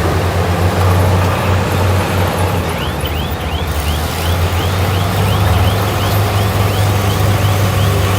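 Heavy earthmoving machinery engine running steadily under load. From about three seconds in, a regular series of high squeaks comes about three times a second.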